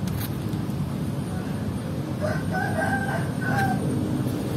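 A rooster crows once, about two seconds in, for roughly a second and a half, over a steady low rumble.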